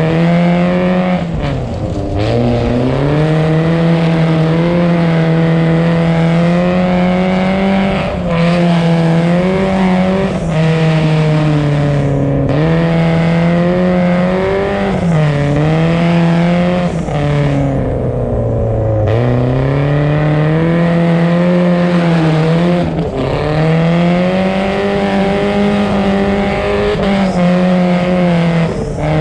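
BMW E36 engine revving hard while drifting on ice, held at high revs with the pitch dropping and climbing again several times, the deepest drops about two seconds in and past the middle.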